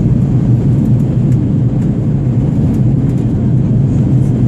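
Aircraft cabin noise in flight: a loud, steady low drone of the engines and rushing air.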